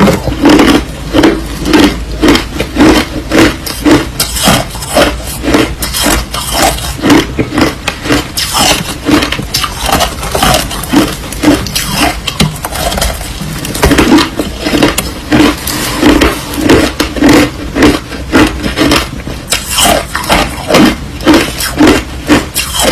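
Crushed ice being chewed close to the microphone: a rhythmic run of loud, crisp crunches, about two a second.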